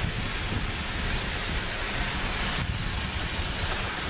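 Wind buffeting the microphone: an uneven low rumble over a steady hiss.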